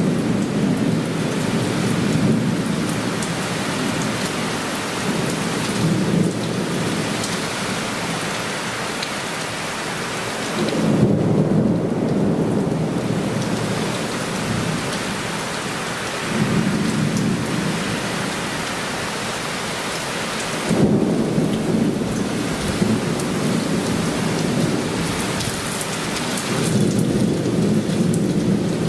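Heavy downpour of rain falling hard and steadily, with thunder rolling through it in several long low rumbles, the strongest about a third of the way in and again about two-thirds of the way in.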